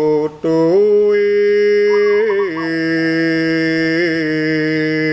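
A man's voice singing a Javanese kidung in a slow, chant-like style, drawing out long held notes that step from pitch to pitch. There is a brief breath break about half a second in.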